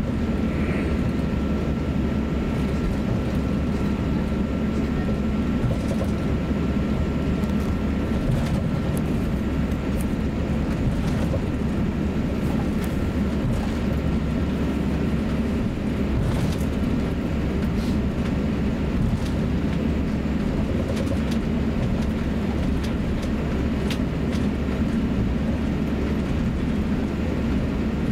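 Cabin noise of an Airbus A350-900 taxiing: a steady low rumble, with a faint high tone that fades out within the first several seconds and a few scattered faint clicks.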